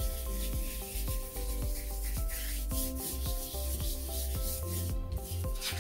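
A hand rubbing back and forth over a folded sheet of paper, a continuous dry scratching with a few harder strokes, pressing the wet paint inside to print it onto the other half in a squish print. Quiet background music plays underneath.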